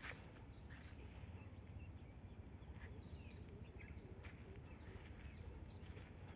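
Faint field ambience: a low rumble of wind on the microphone, a few soft footsteps on dry ground, and short bird chirps about halfway through.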